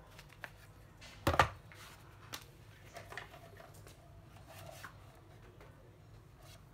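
Handling noise of a plastic power-tool battery charger being picked up off cardboard: a sharp knock with a brief clatter about a second in, then a few lighter clicks and scrapes.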